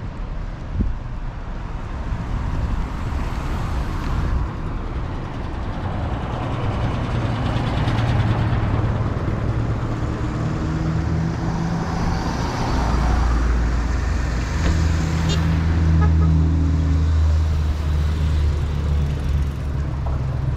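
Street traffic, with a motor vehicle's engine running close by. Its low hum grows louder about halfway through.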